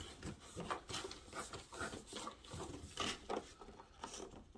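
Faint, irregular rustling and light knocks of someone rummaging through things, searching for a coin.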